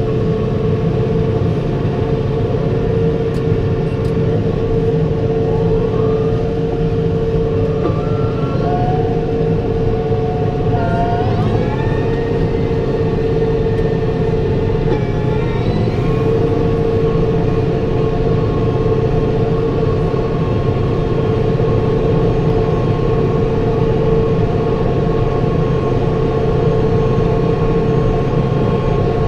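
New Holland T5.120 tractor's four-cylinder diesel running steadily while driving a New Holland BR7060 round baler through hay, with a steady hum over the engine noise. Between about 6 and 16 seconds in, a few higher tones rise and step up in pitch, then settle back to the steady hum.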